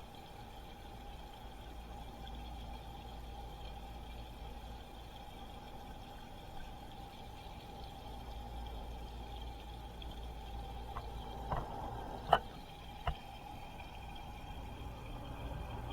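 Water moving in an aquarium tank over a steady hum from the tank's equipment, with three sharp clicks about eleven to thirteen seconds in, the middle one loudest.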